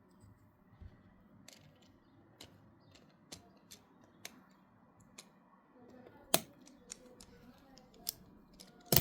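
Lego plastic pieces clicking as they are handled: a scatter of sharp, separate clicks, with a louder snap about six seconds in and another near the end.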